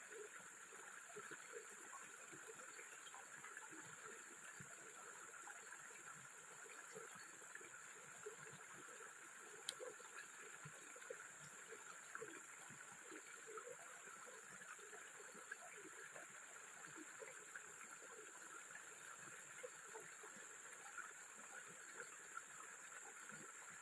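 Faint stream water gurgling and trickling, with a steady high hiss behind it and one sharp click about ten seconds in.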